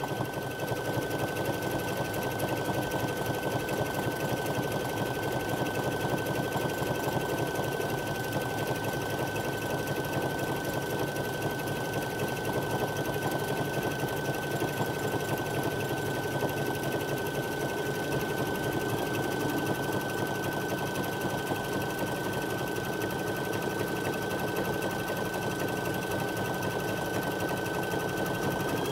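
Baby Lock embroidery machine stitching steadily at a fast, even rate, with a steady high whine underneath, as it sews the outline around an in-the-hoop pouch.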